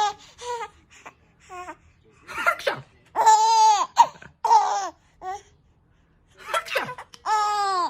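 Four-month-old baby boy laughing in a series of high-pitched bursts with short pauses between them.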